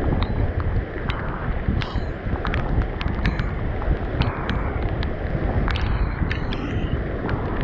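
Strong wind buffeting the microphone in a constant low rumble, with many sharp ticks scattered through it, fitting raindrops striking the microphone in heavy rain.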